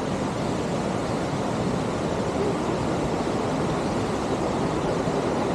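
Steady rushing of a fast mountain creek tumbling over rocks.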